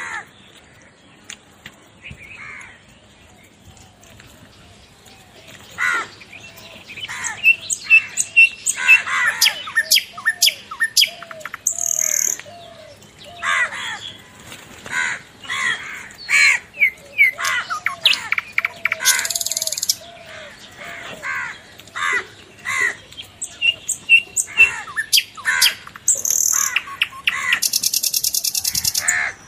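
Many birds calling and chirping, with short calls that are sparse at first and, from about six seconds in, come thick and overlapping.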